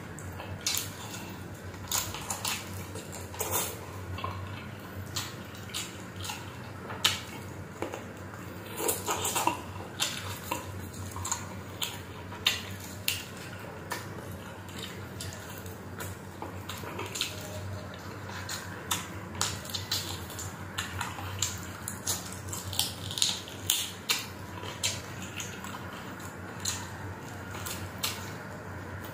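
Wet, smacking eating sounds: chicken adobo being chewed and torn from the bone by hand, with many irregular short clicks and smacks of lips and mouth.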